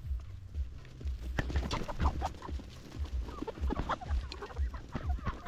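A flock of chickens clucking: many short clucks and calls, overlapping and scattered, over a low, uneven rumble.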